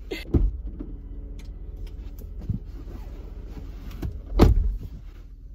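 Car power window motor whirring steadily for a few seconds, with low thumps, the loudest about four and a half seconds in.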